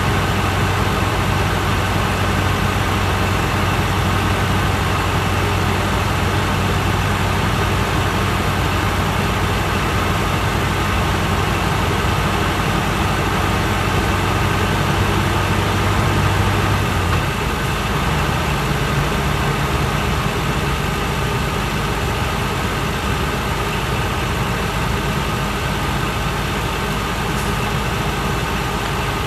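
Mitsubishi Fuso Aero King double-decker bus driving through town, its diesel engine and road noise heard inside the upper-deck cabin. The engine's low steady hum changes pitch a little past halfway through.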